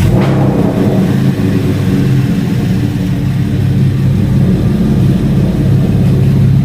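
2010 Chevrolet Camaro engine catching as it is started, then running at a steady idle. The car has a misfire that the mechanic puts down to ignition coil number 4.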